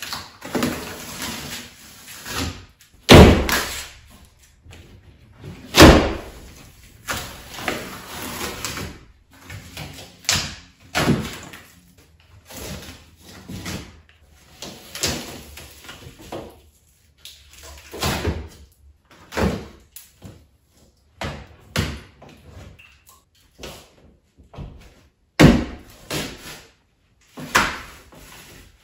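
Drywall being broken and pulled off wall studs by hand: irregular cracks, knocks and crumbling as pieces snap off and drop, with the loudest hits about three and six seconds in.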